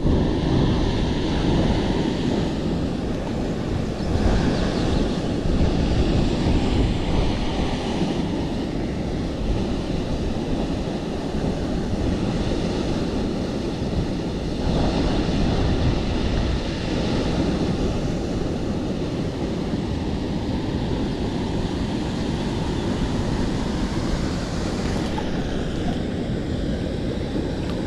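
Steady rushing of a waterfall and fast river water, an even noise with a low, unsteady rumble of wind on the microphone.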